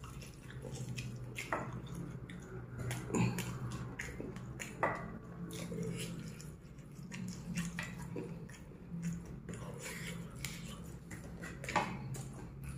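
A person chewing and biting fried chicken with wet mouth sounds, broken now and then by short smacks and clicks.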